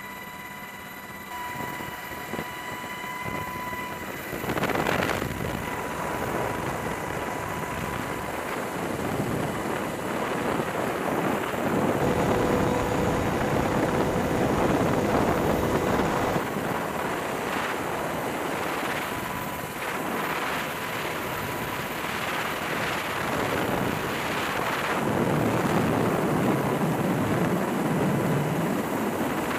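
MH-60S Sea Hawk helicopter running in flight, its rotor and engine noise heard from inside the cabin with the door open, with wind rushing past the microphone. It gets louder about five seconds in.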